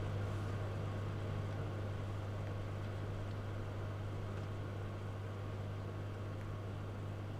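A steady low hum with a faint even hiss.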